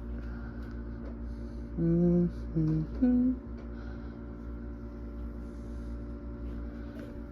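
A person humming three short notes, each held on one pitch, starting about two seconds in, over a steady low hum in a small room.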